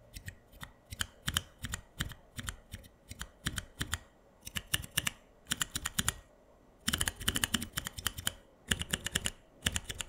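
Keys on a small macropad fitted with NovelKeys Blueberry tactile switches (80 g) being pressed and released, each keystroke a short plastic clack. The presses come slowly one by one at first, then in quicker runs of strokes in the last few seconds.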